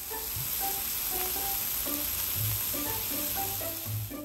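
Food frying on an electric cooking plate with a loud, steady sizzle, over background plucked-string music.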